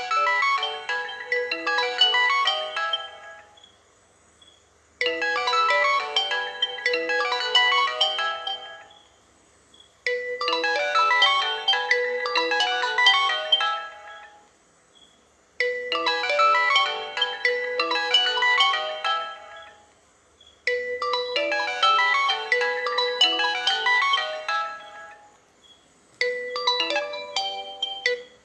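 Smartphone alarm tone: a melodic tune of about four seconds, repeating after a short pause about every five seconds, six times over.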